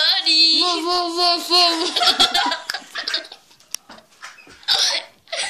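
A child laughing hard: a high-pitched run of quick 'ha' pulses for about two seconds, then quieter, breathy broken laughs.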